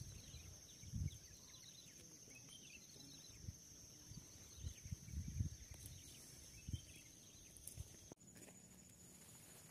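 Quiet outdoor ambience with a few soft low thumps and a steady high-pitched hiss. The sound changes abruptly about eight seconds in.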